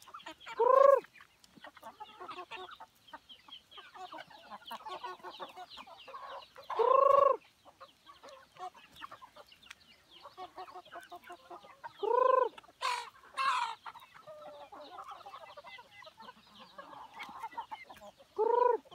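Flock of free-range village chickens clucking steadily. Four loud, arching calls stand out about six seconds apart, with a brief harsh squawk just after the third.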